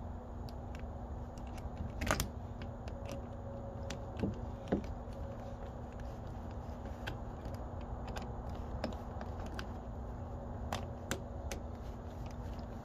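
Screwdriver tightening the screw of a hose clamp on an RV water fill inlet: scattered small metal clicks and scrapes, with a few louder clicks about two seconds in, around four and a half seconds in and near eleven seconds in, over a steady low hum.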